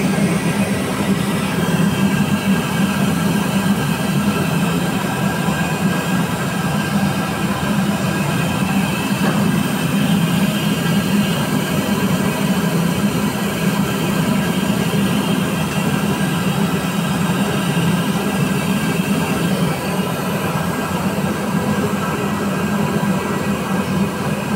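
Gulab jamun deep-frying in a large karahi of ghee: a steady, loud bubbling sizzle with a low rumble underneath.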